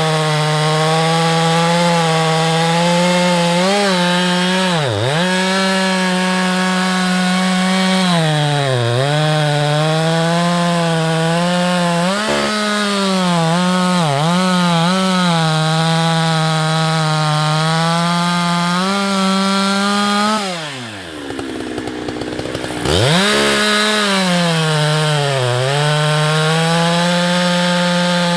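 Husqvarna 365 X-Torq two-stroke chainsaw at full throttle cutting firewood, its pitch sagging each time the chain bites into the wood. About twenty seconds in it drops briefly to idle, then revs back up to full speed.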